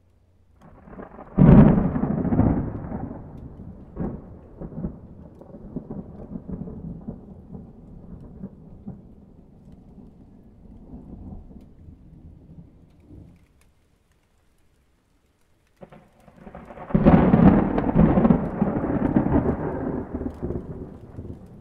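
Thunder: a loud clap about a second and a half in that rolls off in a long, crackling rumble and dies away. After a couple of seconds of near silence, a second loud clap near the end rumbles on.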